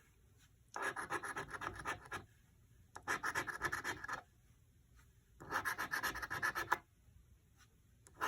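Scratch-off lottery ticket having its coating scraped off in three short bursts of rapid scratching strokes, each about a second and a half long, with brief pauses between.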